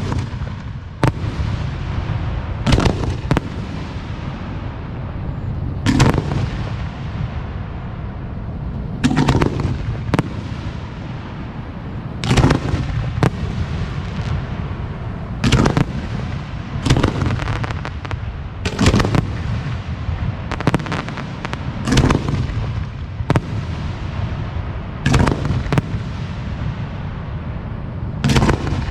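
Aerial firework display shells, 4- to 6-inch, going off in a show. Sharp booms come every one to three seconds over a steady low rumble.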